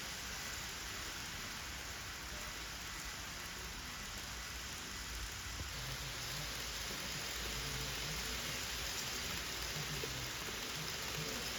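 Steady hissing background noise, with faint tones coming in about halfway through.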